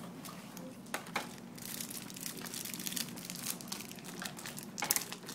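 Crinkling and tearing of the wrapping as a sealed trading card box is opened, a rustle that grows busier and ends in a louder burst of crackles near the end.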